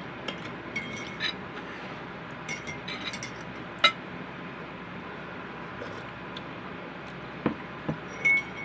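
Eating utensils clinking against dishes during a meal: a few sharp clinks, some ringing briefly, the sharpest about four seconds in and a cluster near the end, over a steady hiss.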